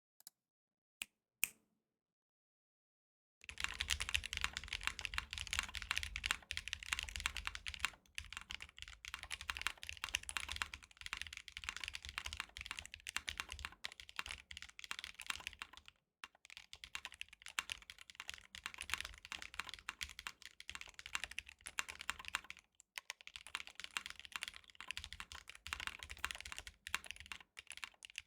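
Matrix ME SE custom mechanical keyboard, with an aluminium flex plate, case foam and lubed NovelKeys Cream linear switches, being typed on. A few single key clicks come first, then a short pause, then fast continuous typing about three seconds in, with two brief breaks later on.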